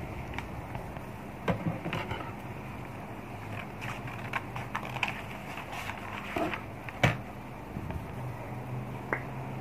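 Scissors cutting through pattern paper, with the sheets rustling and clicking as they are handled; a sharper click about seven seconds in.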